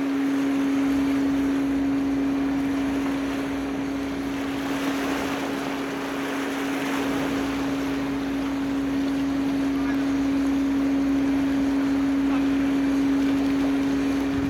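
Steady hum from the berthed car ferry Ise-maru's machinery, holding one unchanging pitch, over a haze of wind and water noise.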